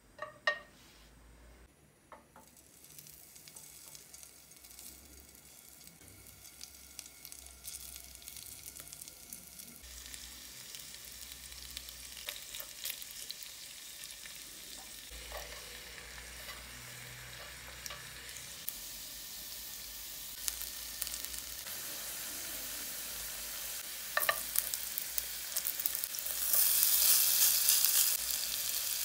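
Hot oil sizzling in a nonstick frying pan as shredded raw potato strips are dropped into a metal ring mould, the sizzle growing steadily louder and loudest near the end. A stainless ring clinks against the pan about half a second in, and once more near the end.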